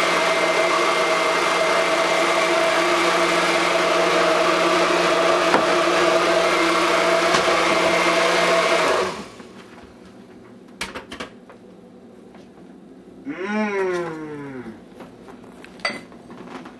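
A kitchen appliance motor runs steadily with a hum and hiss, then switches off abruptly about nine seconds in. After a few clicks, a short pitched call slides down in pitch.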